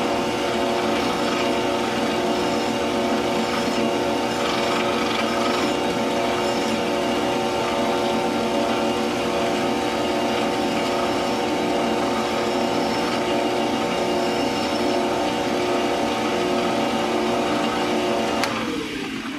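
Metal lathe running steadily with a whine of several fixed tones while a hand file is held to the spinning collar to chamfer its edge. Near the end the lathe is switched off and spins down, its whine falling in pitch.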